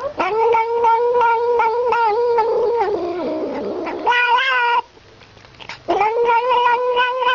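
Cat making a long, steady, droning yowl while sucking milk from a feeding bottle; the call wavers slightly several times a second. It dips lower partway through, rises higher, breaks off for about a second, then starts again.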